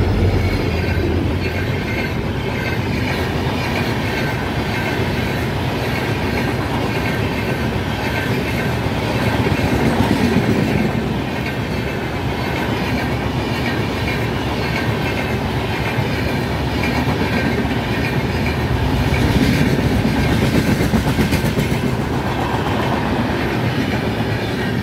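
An express train's LHB passenger coaches rolling past at speed on the rails, a loud, steady rolling clatter that swells twice. The WDP4D diesel locomotive's engine drone fades away in the first couple of seconds as it moves off.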